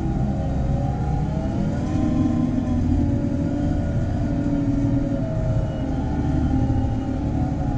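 JCB Fastrac 4220 tractor's diesel engine running steadily under load while pulling a plough. Its pitch wavers gently up and down as the tractor's automatic control adjusts the revs to the load.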